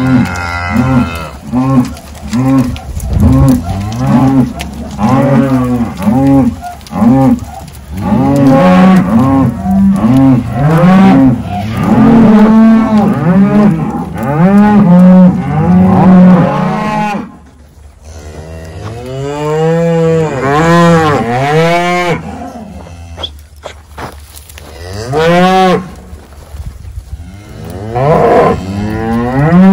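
Cattle mooing loudly, many calls of different pitches overlapping one after another, with a short lull a little past the middle.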